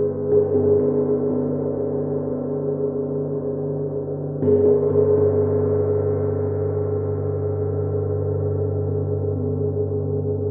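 Gong ringing with a long, sustained wash of many overtones. It is struck again softly just after the start and more strongly about four and a half seconds in. Each stroke brings a brief swell of brighter, higher overtones that then fade back into the steady hum.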